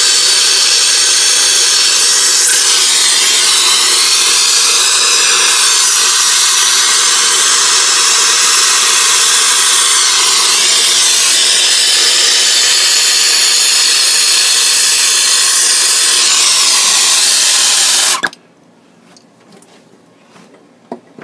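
Brazing torch flame hissing loudly and steadily while silver soldering a copper refrigerant line joint, then cutting off suddenly about 18 seconds in, leaving a few faint clicks.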